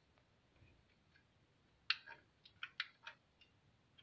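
A quick run of about six short, sharp clicks or taps, starting about two seconds in and lasting a second and a half.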